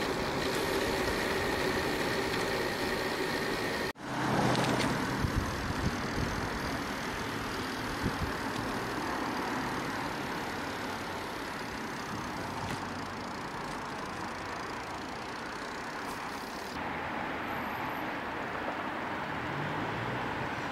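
Steady wind and road noise from a bicycle being ridden on asphalt, heard through a handlebar-mounted camera. There are a few knocks from about four seconds in, and near the end the noise turns duller.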